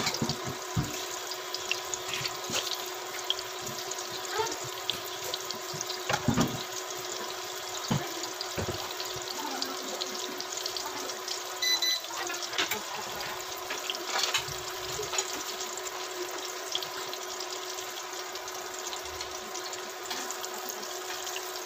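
Breaded cabbage rolls shallow-frying in hot oil: a steady sizzle with scattered crackles and pops.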